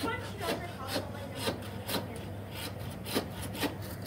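Hand meat saw, a bow-frame bone saw, cutting through a raw beef loin and its bone to take off a T-bone steak: rasping back-and-forth strokes, about two a second.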